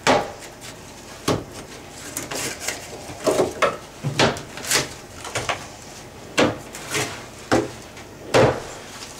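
Irregular knocks, clatters and scrapes of hands working inside an opened plaster wall around a shower valve and its framing. There are about a dozen sharp knocks, spaced unevenly.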